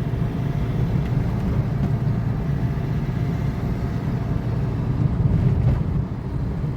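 A car running along a road, heard from inside the cabin: a steady low rumble of engine and road noise.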